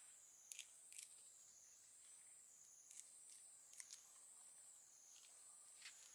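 Faint outdoor insect chorus: a steady high drone that wavers up and down in pitch in a slow regular cycle, with a few short high clicks scattered through it.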